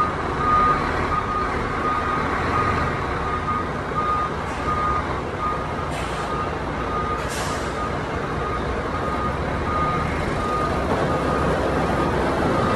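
Tanker trucks reversing: a truck's reversing alarm beeps steadily, about twice a second, over the rumble of diesel truck engines. Two short hisses of air, typical of truck air brakes, come about six and seven seconds in.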